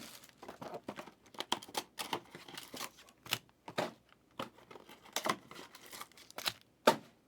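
Wrapping on trading-card boxes and packs being torn open and crinkled by hand, in quick irregular rips and crackles.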